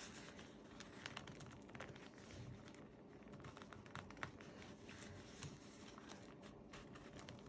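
Faint rustling and light clicks of a folded paper signature being handled and shifted on a cutting mat.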